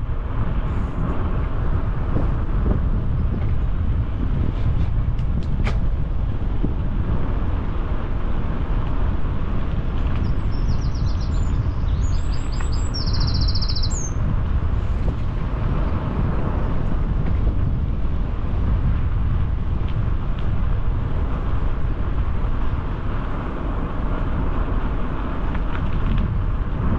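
Wind buffeting the microphone of a helmet-mounted camera on a moving bicycle, a steady low rumble. About ten seconds in, a small bird sings rapid high trills for a few seconds.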